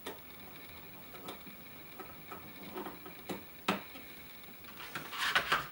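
Kingston HyperX DDR3 laptop-type memory modules being fitted into a 27-inch iMac's memory slots: scattered small clicks and taps of the modules against the slots, one sharper click about two-thirds of the way through and a quick run of clicks near the end as a module seats.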